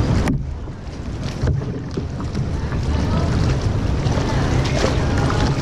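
Wind rumbling on the microphone over open water while kayaking, with a steady wash of water noise; the wind briefly eases early on, then picks up again.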